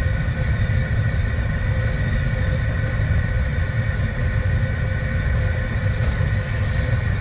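Gas torch burning at full flame: a steady rushing noise with a low rumble and a few faint steady tones over it.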